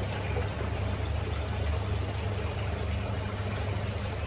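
Submersible aquarium pump running, a steady low hum under a constant wash of moving water.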